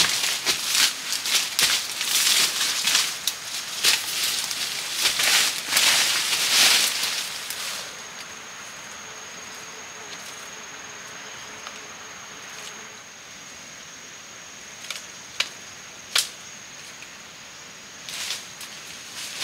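Leaves, ferns and dry litter rustling and crackling as a person moves through dense forest undergrowth, dying down after about seven seconds. After that a steady high-pitched insect drone is left, with a few sharp snaps near the end.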